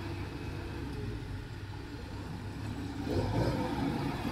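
Engines of rice combine harvesters and a tracked crawler transporter running as the machines drive onto a harvested rice field, a steady low rumble that grows louder about three seconds in.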